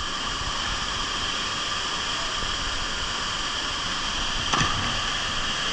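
Steady rush of a waterfall pouring into its pool, with one brief splash about four and a half seconds in as a jumper lands in the water.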